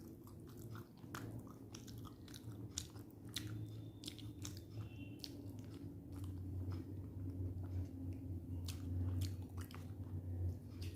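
A person chewing and biting food close to the microphone, with many irregular sharp, crunchy clicks. A low steady hum runs underneath.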